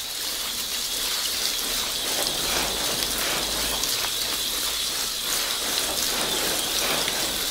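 Hose watering wand spraying a steady, gentle shower of water onto a plastic cell tray of dry seed-starting mix, a continuous hiss of spray and patter of water on the soil. This is the final soaking that wets the mix through and settles it in the cells.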